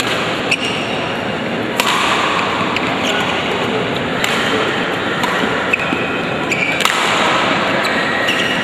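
Badminton rally: several sharp racket strikes on the shuttlecock, a second or more apart, with a few short high squeaks, over a steady background murmur of spectators in a large hall.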